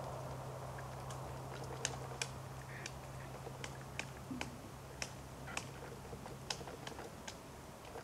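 Pileated woodpecker pecking at a tree trunk: irregular sharp taps, about two or three a second and unevenly spaced, some louder than others.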